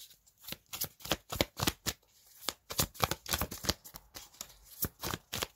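A tarot deck being shuffled by hand: a rapid, uneven run of short card flicks and taps.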